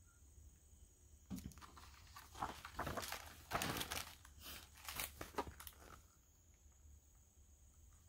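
Paper pages of a large picture book rustling and crinkling as they are handled and turned. It starts about a second in and stops about six seconds in.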